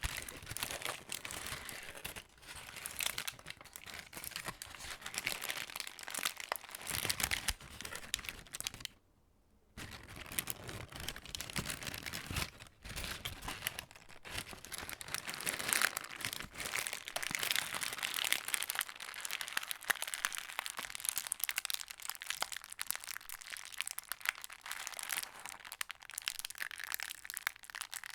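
Plastic bag being moved and handled, crinkling continuously, with a brief pause about nine seconds in.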